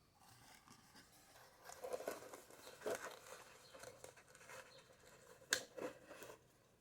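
Handling noise: irregular rustling and light clicks of packaging and boards being handled, with one sharp click about five and a half seconds in.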